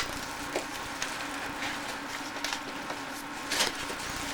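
Gift wrapping paper and packaging being handled and torn open, with scattered crinkles and a louder crackle about three and a half seconds in, over a steady low hum.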